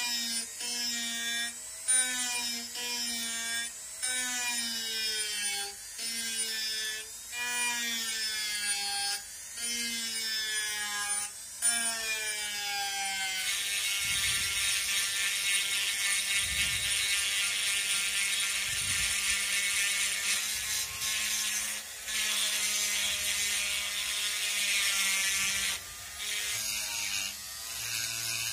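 Handheld rotary tool running on a steel axe head. In the first half, a sanding drum presses on and lifts off the blade about once a second, and the motor whine sags in pitch each time it bites. About halfway through, a pointed grinding bit works inside the axe's eye, making a steadier, higher grinding.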